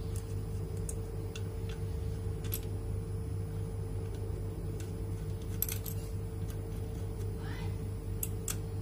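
Scattered light metallic clicks and clinks as a small flat spanner and steel nosepieces are handled at the head of a hand riveter, the sharpest about halfway through, over a steady low hum.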